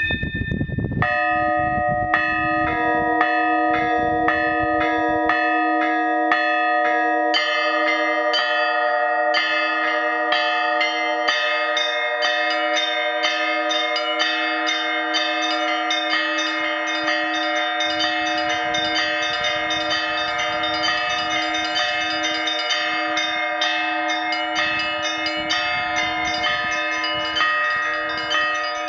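Russian Orthodox church bells rung by hand from the belfry: a low bell tone holds underneath while the smaller bells are struck in quick rhythmic patterns. The ringing starts about a second in and thickens as more bells join about seven seconds in. The set is led by a new 120 kg blagovestnik.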